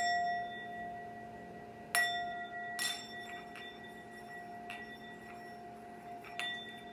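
Singing bowl struck with a mallet, ringing with one long, steady tone. It is struck again about two seconds in and once more a second later, then tapped more lightly twice near the end, each strike renewing the ring.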